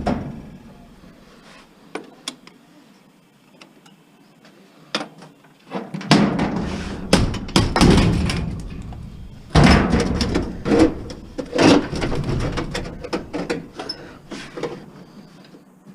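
Metal parts of an old electrical fuse panel being pulled and worked loose by hand: scattered clicks and knocks, then a louder run of clanking, scraping and thuds about six seconds in that dies away near the end.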